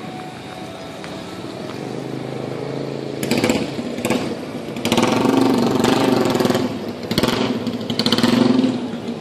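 A small engine revving up and down in several surges as it passes close by, over a steady hum of traffic.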